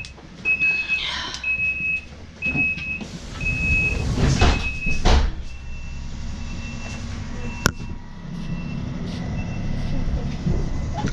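A train's door warning signal beeping about once a second, one high tone, loud at first and fainter after about five seconds, over the low rumble of the train's engine. A single sharp click sounds near the middle, and the engine hum grows a little after that.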